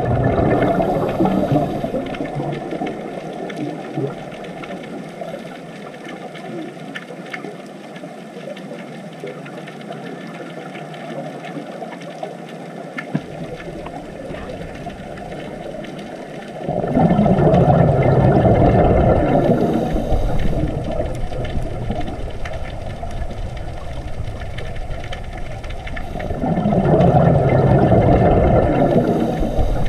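Scuba diver breathing through a regulator underwater: three long bursts of exhaled bubbles, one at the start, one about seventeen seconds in and one near the end, with a steady low rumble between breaths.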